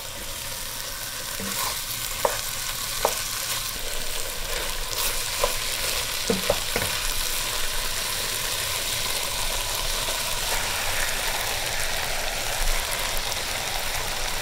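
Chicken pieces sizzling as they sauté in a stainless steel pot, stirred with a wooden spoon that knocks sharply a few times in the first half. In the second half, ground walnuts are spooned into the pot and the sizzle goes on under them.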